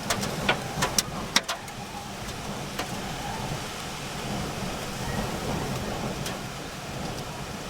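Heavy rain with a vehicle's engine running underneath as a low steady hum. Several sharp knocks in the first second and a half.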